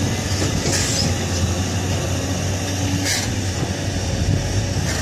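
Heavy diesel engine running steadily with a low, even hum, with two short hissing bursts about a second in and about three seconds in.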